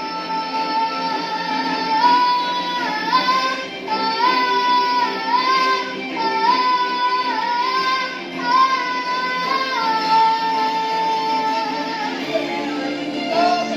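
A young girl singing along to a karaoke backing track, holding long wordless "ah" notes that step up and down in pitch.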